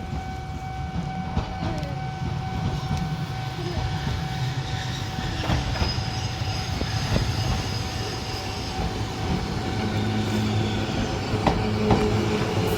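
A level crossing warning bell rings steadily as a Randen tram passes over the crossing, with rumble and a few sharp clicks from the wheels over the rail joints. A low steady hum comes in near the end.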